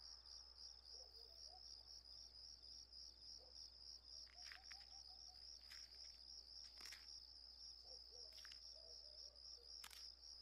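Faint crickets chirping in a fast, even trill that runs on without a break, with a few faint clicks scattered through it.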